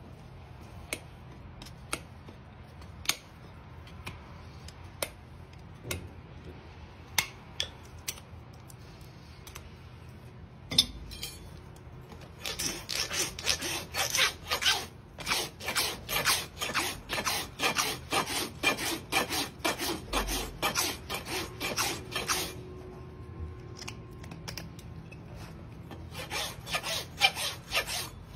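Steel hoof nippers snapping through overgrown hoof wall, a sharp crack every second or so. Then a hoof rasp files across the bottom of the hoof in quick back-and-forth strokes, about three a second, stopping briefly near the end before starting again.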